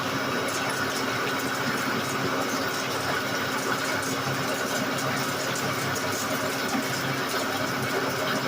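Large engine lathe running under a heavy roughing cut on a big metal ring: a steady hum from the motor and gearing, with scattered small ticks of hot chips breaking off.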